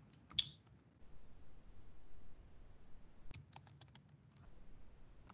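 Computer keyboard typing, faint: a few keystrokes at the start, then a quick run of about eight keys a little past the middle.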